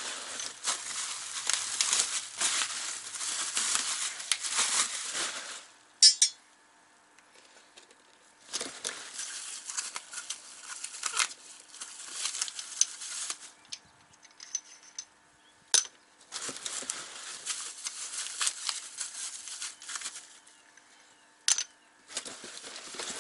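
Plastic wrapping and bubble wrap crinkling and rustling, with cardboard box flaps handled, as suspension parts are unpacked. It comes in three long stretches with quieter gaps, and a few sharp clicks or knocks fall between them, the loudest about six seconds in.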